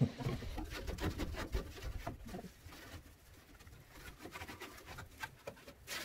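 Faint scraping and rubbing as a gloved hand scrubs baked-on grease off the metal burner heat shields inside a built-in gas grill, in many short, irregular strokes. A bird calls in the background.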